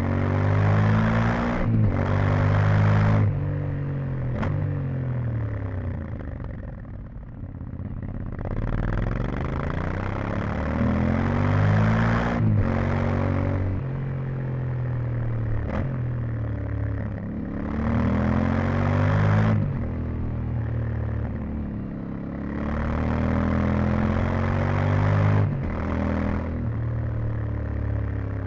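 Yamaha Ténéré 700's 689 cc parallel-twin engine on stock exhaust, accelerating hard through the gears: the pitch climbs and drops sharply at each upshift, several times over, with a couple of stretches where the throttle is rolled off and the engine note falls away. Wind rush rises with speed.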